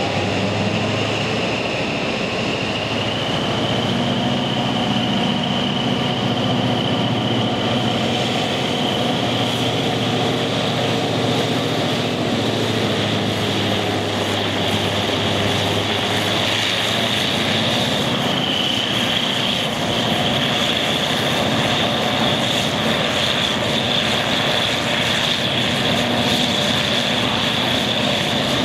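Slovenian class 664 diesel locomotive under power, its engine loud, with a high whine that climbs slowly, drops briefly about two-thirds of the way through, then climbs again as the train picks up speed.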